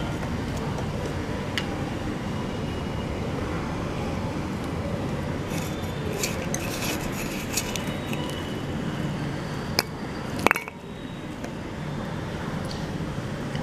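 Light clinks and scrapes of fingers and fried prawns against a stainless steel bowl, a scattering of them through the middle and one louder ringing clink about three quarters of the way in, over a steady low rumble.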